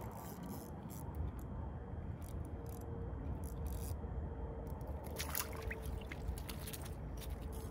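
Wind rumbling on the microphone while a fish is reeled in on a short ice rod, with scattered small clicks, then a splash and dripping water about five seconds in as the fish is lifted up through the ice hole.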